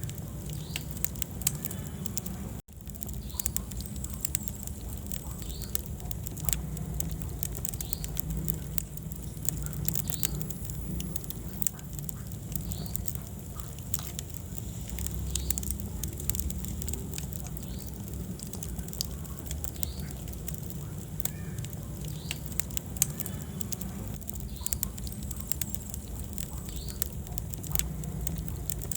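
Wood fire burning in a fireplace: scattered sharp crackles and pops over a low, steady rumble of the flames. The sound cuts out for an instant about three seconds in.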